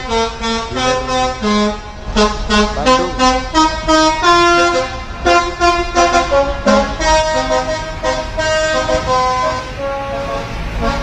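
Telolet basuri bus horn playing a melody: a set of air-horn trumpets sounding short notes in quick succession at changing pitches, a few held a little longer. A low rumble runs beneath from about two seconds in.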